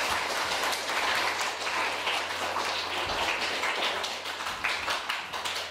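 Audience applauding: many people in a room clapping steadily at the end of a performance.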